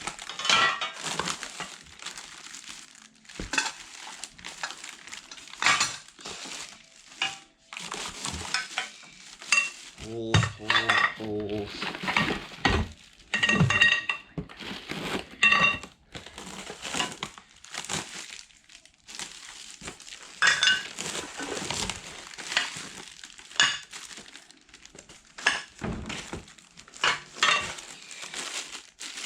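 Metal fish-house brackets and poles clinking and knocking together as they are handled and unpacked, some strikes ringing briefly, with plastic packaging crinkling.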